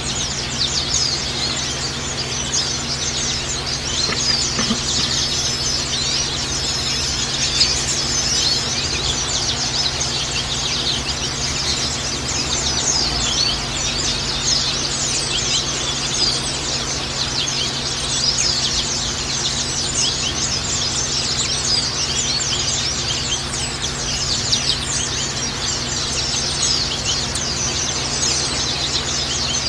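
White-eyes (Zosterops) singing, a dense chorus of many rapid, high, overlapping chirps and trills with no pause.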